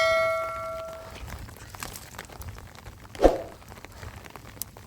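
A metal object, such as a pot or bowl, rings after being struck, its several tones dying away over about a second. About three seconds in comes a single dull knock.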